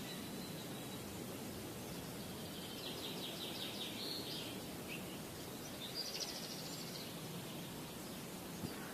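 Steady outdoor background hiss with a bird giving two short, high, rapidly pulsed trills, about three seconds and six seconds in.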